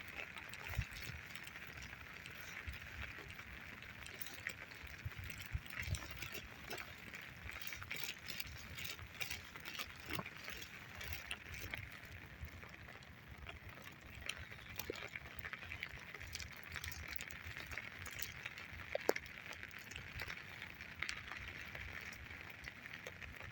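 Footsteps on wet forest ground, an irregular run of soft knocks and small crackling clicks, over a steady high background hiss.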